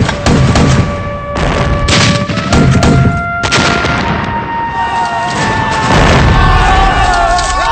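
Several heavy explosions, grenade-discharger shells bursting one after another, over dramatic background music with long held notes.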